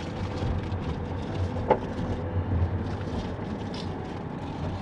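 Steady low engine rumble, with a single sharp click a little under two seconds in.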